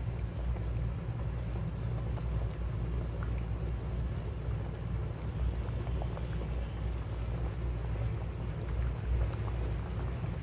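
Pot of shrimp sinigang boiling on the stove: scattered small bubble pops over a steady low rumble.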